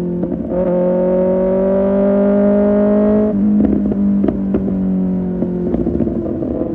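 Kawasaki ZX6R's inline-four engine through an Arrow Pro Race exhaust, pulling with the pitch slowly rising for about three seconds. Then the throttle closes and the exhaust crackles and pops on the overrun as the revs ease down.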